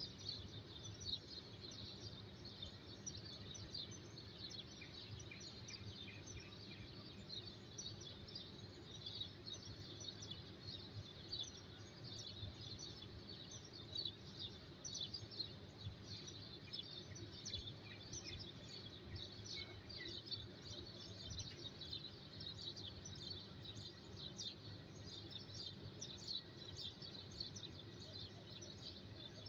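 Faint, dense chirping of many birds with no break, over a low steady hum.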